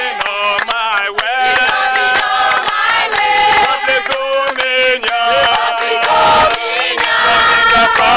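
A crowd singing a chant-like song together, with hand clapping.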